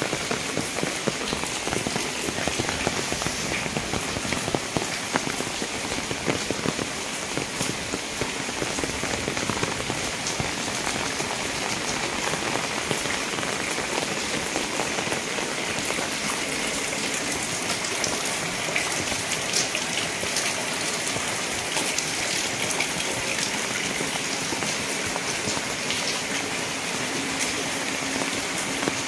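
Steady heavy rain falling on a wet concrete courtyard, many individual drops ticking and splashing close by against a constant hiss.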